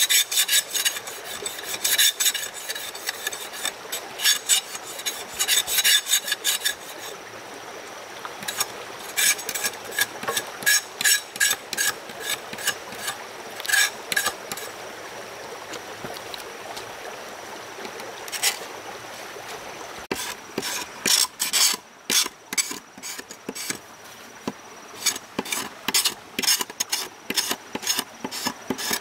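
Hand tool scraping or rasping in repeated quick strokes, in runs of several strokes broken by short pauses.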